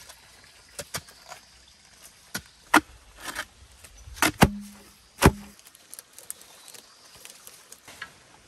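Irregular sharp chopping knocks of a blade striking bamboo, about ten strikes at uneven intervals, the loudest around the middle.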